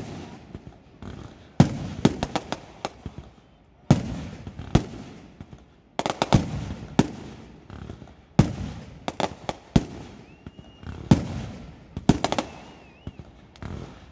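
Fireworks and firecrackers going off in a celebration: sharp bangs in quick clusters every second or two, each trailing off in a low rumbling echo.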